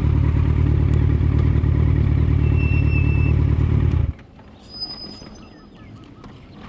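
A motor vehicle running with a steady low rumble that stops abruptly about four seconds in, leaving a much quieter background with a few faint high tones.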